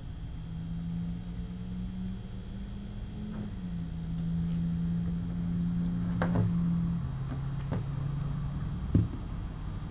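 A small motor running with a steady low hum that drops slightly in pitch twice, with a few light clicks and one sharper knock near the end.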